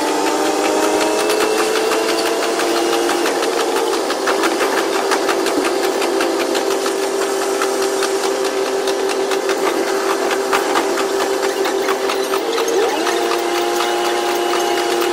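KiHa 122 series diesel railcar running, heard from the cab: a steady engine and drive whine with several tones that shift in pitch near the end, over fast, dense clatter of wheels on rail, sped up in a double-speed recording.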